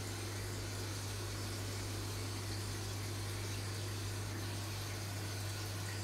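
Steady hum of an aquarium pump or filter, with a constant hiss of moving water.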